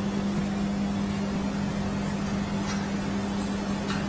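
Steady machine hum: one constant low tone over an even, fan-like hiss, with a couple of faint ticks near the end.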